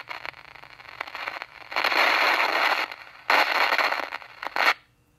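Crackling, rushing noise from a faulty RCA 8-X-541 tube radio, heard through a signal tracer's speaker with the probe on the high side of the volume control. It swells loud twice, then cuts off shortly before the end. The fault lies ahead of the audio stages, toward the receiver's front end.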